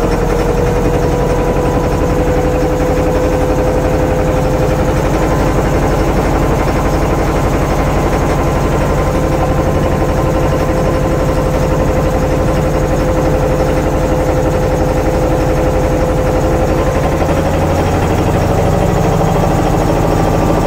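Small wooden boat's engine running steadily under way, with a steady whine over the engine noise that rises a little near the end.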